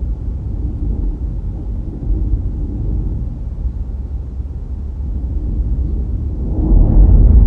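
Car driving along a road: a steady low rumble of road and wind noise, growing louder near the end.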